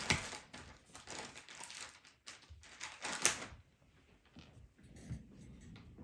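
Paper and cardstock rustling and sliding in three short bursts, as cut-out card pieces are handled, then a few light taps.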